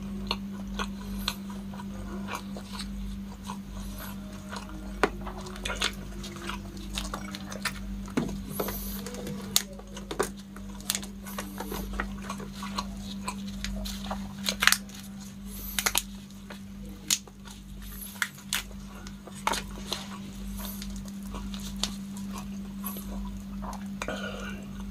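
Close-miked eating of cooked giant freshwater prawns: wet chewing and lip smacks, and irregular sharp cracks and crackles as the prawn shells are broken apart and peeled by gloved hands. A steady low hum runs underneath.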